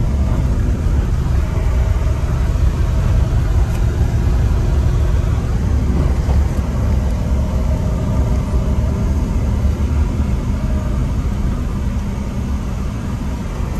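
Jeep Renegade driving over sand dunes: a steady engine and driving rumble, heavy at the low end, easing slightly near the end.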